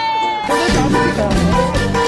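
Music with a steady beat and bass starts about half a second in.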